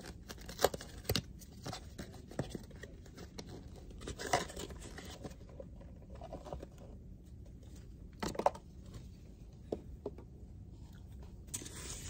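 Paperboard takeout box being unfolded and handled, with crinkling, scraping and a few sharp clicks, as a block of rice is tipped out of it onto a paper plate.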